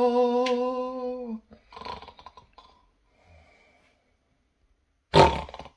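A man's voice holding a long sung note, the close of a hymn, which stops about a second and a half in. Then come faint breaths, and near the end a single short, loud snore.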